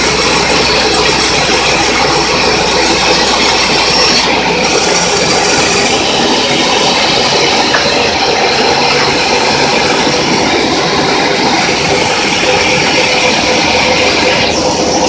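Portable sawmill running loud and steady, its saw cutting acacia into boards as the log carriage runs through it.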